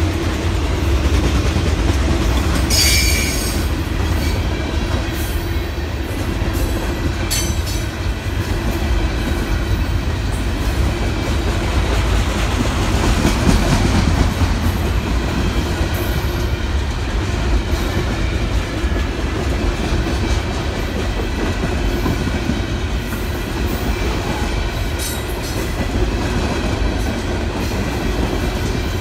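Freight train cars rolling steadily past on the rails, a continuous heavy rumble of wheels on track. Brief high-pitched wheel squeals come about three seconds in, again around seven seconds, and once near the end.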